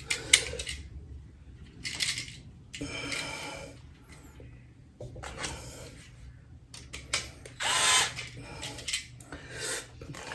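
Battery-powered screwdriver whirring in a few short bursts, backing out the terminal screws on a motion sensor light switch.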